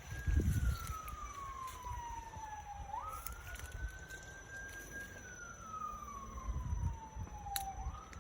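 A siren wailing in slow cycles: each one climbs quickly, then slides down over about two seconds. A rise comes about three seconds in and another near the end. Wind gusts buffet the microphone now and then.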